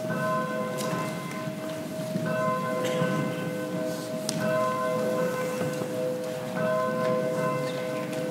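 Church bell ringing: two steady low tones held throughout, with higher ringing tones that start and stop every second or two.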